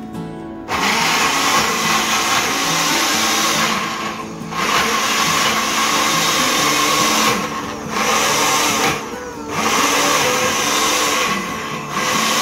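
Electric blender running in four bursts of one to three seconds, starting and stopping abruptly with short pauses between.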